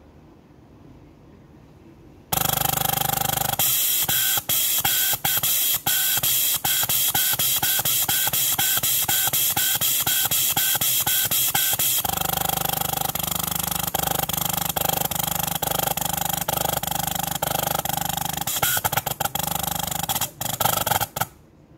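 Compressed air hissing loudly through a digital smart electro-pneumatic positioner and its double-acting pneumatic actuator as the positioner strokes the valve during auto-initialization. The hiss starts suddenly about two seconds in and cuts off just before the end, broken by clicks and, through the middle, a regular pulsing about one and a half times a second.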